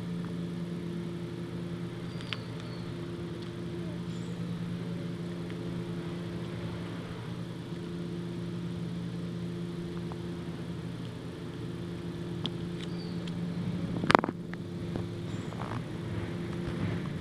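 A steady low hum of a running motor, with faint scattered crunching clicks from a husky chewing a whole raw chicken, bones and all. One sharp crack stands out about fourteen seconds in.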